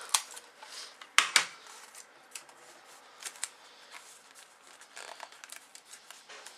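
Sheets of paper being handled, rustling with a few short sharp crackles, the loudest just over a second in.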